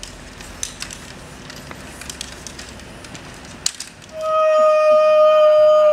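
Quiet room noise with a few small clicks, then about four seconds in a single loud held note, like a whistle, that drops in pitch as it ends.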